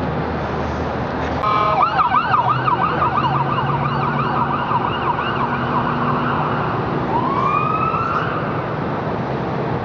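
Emergency vehicle's electronic siren. It starts about one and a half seconds in with a brief steady tone, runs a fast yelp of quick repeated up-and-down sweeps, breaks off, and near the end gives one slow rising wail, over steady traffic noise.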